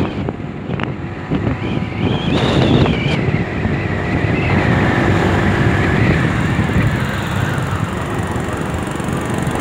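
Scooter on the move: wind buffeting the microphone over the running engine. A high whine rises about two seconds in, then slowly falls away.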